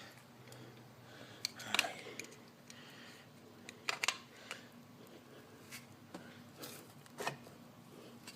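A few scattered sharp clicks and light taps of tools and metal parts being handled during hands-on carburetor fitting, over a faint steady hum.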